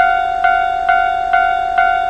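Japanese railway level-crossing warning bell clanging steadily, about two strikes a second, each strike ringing on into the next: the crossing's alarm signalling that a train is coming.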